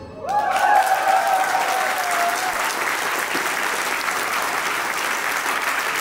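Audience applauding as the tango music ends, with one long held call over the clapping in the first couple of seconds.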